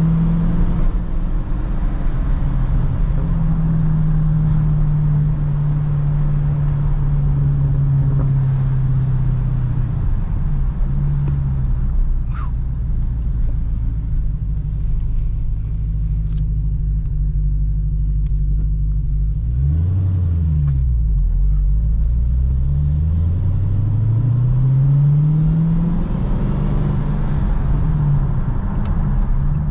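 Dodge Challenger SRT Hellcat's supercharged 6.2-litre HEMI V8 heard from inside the cabin: it runs at steady revs, eases off about ten seconds in, then about twenty seconds in the revs dip sharply and climb steadily for several seconds as the car pulls away, before holding steady again.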